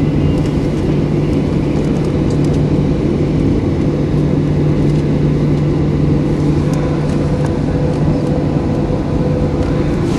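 Boeing 737-800's CFM56-7B engines heard from inside the cabin while the aircraft taxis: a steady, loud low hum with a few faint steady tones above it. Scattered light clicks and rattles sit over the hum.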